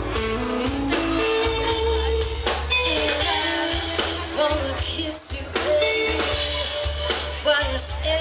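Live rock band playing through a PA: a singer over acoustic and electric guitars and a drum kit keeping a steady beat.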